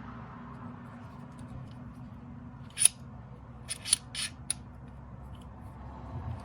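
Sharp mechanical clicks from a small metal tripod fluid head being handled: one loud click, then a quick run of four clicks about a second later, over a steady low hum.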